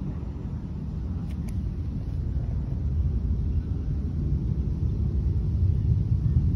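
Low, unsteady rumble of wind buffeting the phone's microphone, growing a little louder about halfway through.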